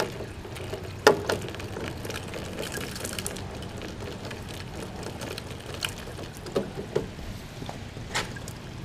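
Scattered knocks and clicks as a rainwater catch spout is handled and fitted onto a gutter downspout, the sharpest knock about a second in, over a steady low background rumble.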